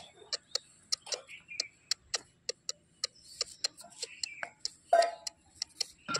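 Quick, sharp tongue clicks repeated about three to four times a second, a person calling a puppy, with a short voiced sound about five seconds in.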